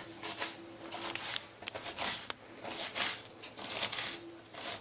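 Paring knife dicing an onion on a cutting board: a string of irregular crisp cuts through the onion layers and light taps of the blade on the board.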